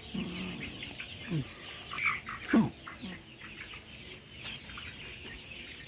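A flock of young layer chickens chirping and clucking, with many short high peeps and a few louder falling calls, the loudest about two and a half seconds in.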